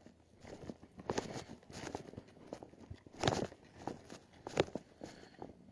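Footsteps of people walking over dry, uneven ground: irregular steps and scuffs, with louder steps about three seconds in and again past four and a half seconds.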